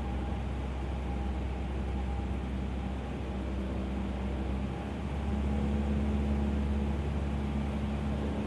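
Light-aircraft engine of a Cessna 150L, a Continental O-200 four-cylinder, droning steadily at reduced power with flaps out on final approach; about five seconds in it gets louder and its pitch steps up as power is added.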